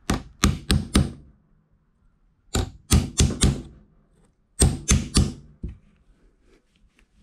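A hammer tapping a punch against the pin of a corroded aluminium blind rivet in a hatch-lid hinge, driving the pin through so the rivet sleeve can be drilled out. It comes in three quick bursts of about four sharp metallic strikes each, with short pauses between them.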